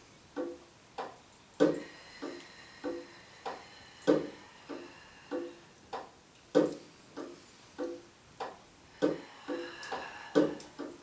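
Instrumental background music of short plucked or struck notes in a slow, steady pattern, with a stronger note about every two and a half seconds and lighter notes between.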